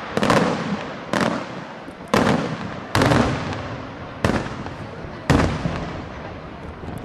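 Aerial firework shells (bombe da tiro) bursting overhead: six loud bangs about a second apart, each trailing off in a rolling echo.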